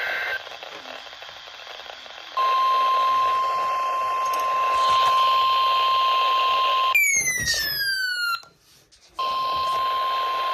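EAS alert signalling over a hissing weather-radio broadcast. It opens with the tail of a warbling SAME data burst, and about two seconds later the steady single-pitch 1050 Hz warning alarm tone begins. Around seven seconds in the tone is broken by a falling electronic sweep and a moment of silence, then the alarm tone resumes.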